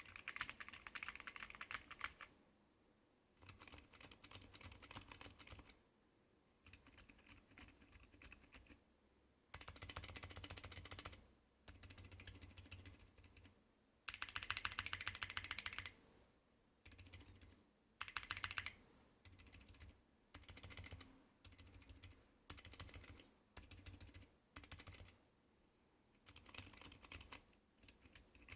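Bursts of fast typing on a mechanical keyboard with stock switches, a second or two each with short pauses between. Some bursts are much louder and sharper (non-silent NovelKeys Cream linears); others are quieter and duller (silent Boba U4 and Zilent V2 tactile switches).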